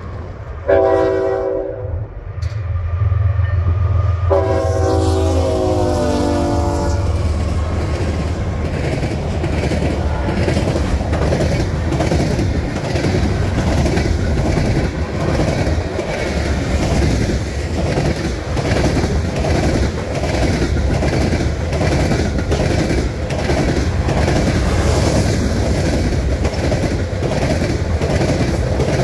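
Canadian National freight train passing close by: the lead locomotive, a GE ES44AC diesel, sounds its horn twice in the first few seconds, the second blast longer and falling in pitch as it goes past, over the low rumble of its engine. Then the freight cars roll by with a steady, rhythmic clickety-clack of wheels over the rail joints.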